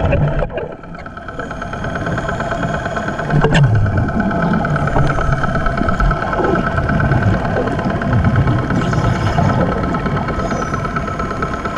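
Steady drone of a motor running at the surface, heard through the water on a hookah (compressor) dive, with irregular low gurgling surges of a diver's exhaled bubbles.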